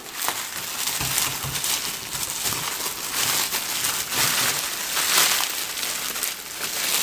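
Clear plastic wrapping crinkling and crackling continuously as a taped, plastic-wrapped bundle is handled, pulled open and lifted.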